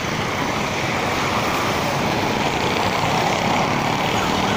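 Steady road traffic noise from cars and other vehicles passing on a busy multi-lane road. A siren starts to wail right at the end.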